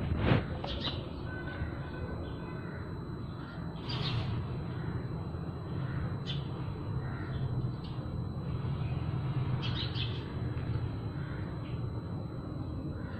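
Several short, harsh bird calls, like crows cawing, come at irregular intervals over a steady low rumble.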